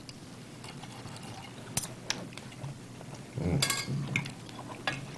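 Knives and forks clinking and scraping on dinner plates as people eat, with a few sharp, separate clinks. A brief murmur comes about three and a half seconds in.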